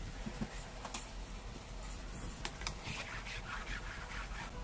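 A hand rubbing and handling a round grey disc: soft scraping, busiest in the second half, with a few small clicks.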